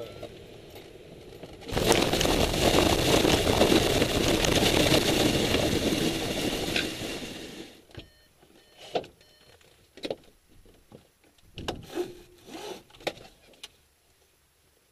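Swift rigid-wing glider touching down and running across grass: a sudden loud rumble and scraping of the ground run that fades out as it stops, followed by scattered light clicks and knocks as it comes to rest.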